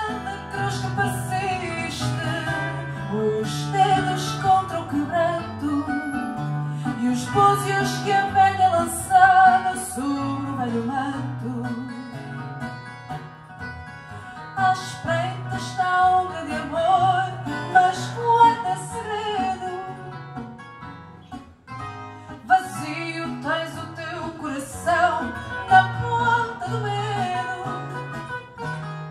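Live fado: a woman singing through a microphone, accompanied by one plucked acoustic guitar, with a short break in the phrase about two-thirds through.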